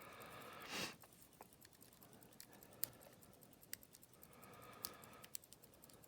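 Faint, sparse metallic ticks of a lock pick and tension tool working the pin stack of an Abus 72/40 padlock, a few sharp clicks a second or so apart, as the picking is started over after a lost false set. A short rush of noise comes just under a second in.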